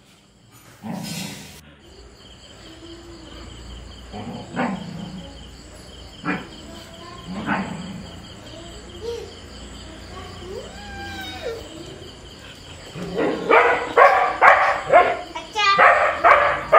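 Dogs, a Siberian husky and a border collie, scuffling: a few separate barks, then whines that rise and fall in pitch, then a fast run of loud barks, about three a second, from about two-thirds of the way in.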